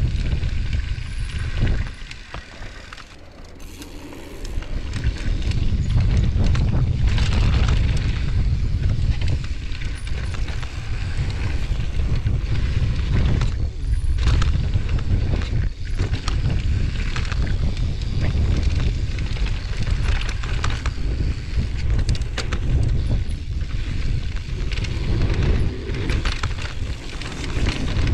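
Mountain bike descending a bike-park trail: wind buffeting the action-camera microphone, with tyres rolling over dirt and wooden boardwalk planks and the bike rattling over bumps. The wind noise drops for a moment a few seconds in.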